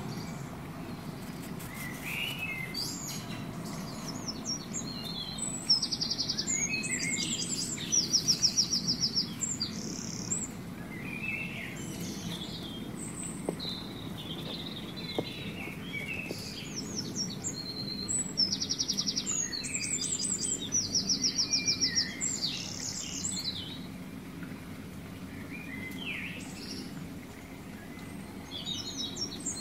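Birdsong of several small birds: scattered short chirps and fast, high trilled phrases, with the same trill returning a few times, over a low steady background noise.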